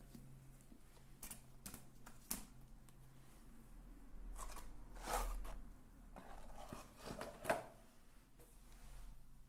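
Close-miked ASMR trigger sounds of objects being handled: a few sharp clicks, then two spells of scratchy rustling about four and six seconds in, the second ending in a sharp tap.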